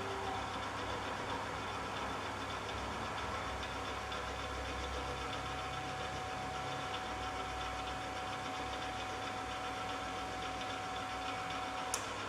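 Stepper-motor table feed on a benchtop milling machine running, a steady mechanical hum with a whine held at one pitch for most of the time, ending in a sharp click near the end.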